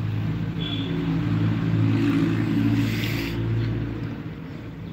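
A motor engine running with a steady low hum that grows louder toward the middle and fades near the end.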